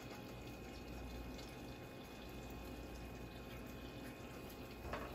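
Faint, steady sound of a saucepan of buffalo sauce warming on medium-low heat, with a couple of soft scrapes of a silicone spatula against a plastic measuring spoon near the end.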